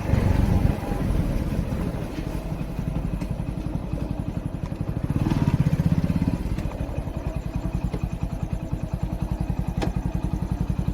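Motorcycle engine running with a steady, rapid firing pulse, swelling louder for a moment about five seconds in before settling back.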